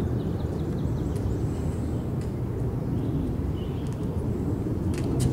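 Steady low rumble of outdoor background noise, with a few faint ticks near the end.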